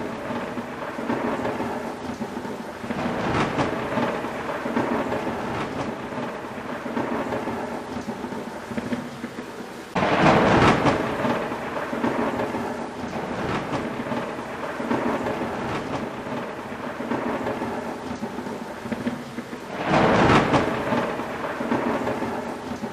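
Thunderstorm with steady rain and rolling thunder: rumbling swells, with two sudden loud claps of thunder, about ten seconds in and again near the end.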